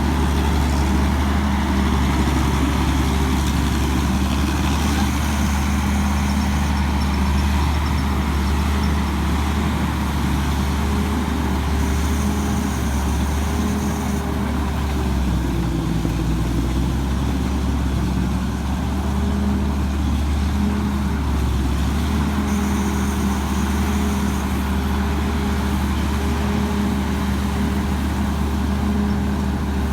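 Tamco Pro S9000 combine harvester's Hino J08C diesel engine running steadily, a deep hum with a faint wavering whine over it.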